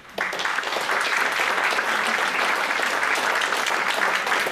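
Audience applauding, breaking out suddenly a moment in and holding steady.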